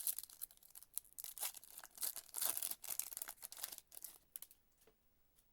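Foil trading-card pack wrapper being torn open and crinkled by hand, in a run of irregular crackles that dies away about four and a half seconds in.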